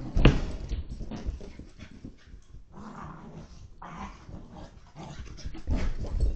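Portuguese Water Dog puppy growling and grumbling in play, the happy excited noises of a puppy with the zoomies, not aggression. Thumps as she jumps on and off the couch, the loudest about a quarter second in and more near the end, heard through a home security camera's microphone.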